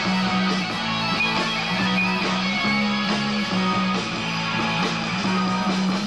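Live rock band playing, led by strummed electric guitars over bass and drums.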